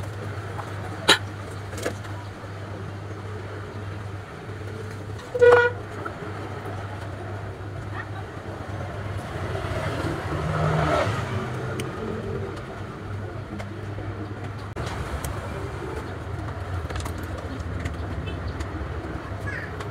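Steady low hum of background traffic, with a short vehicle-horn toot about five and a half seconds in as the loudest sound. A few light clicks come from hands working a small motor.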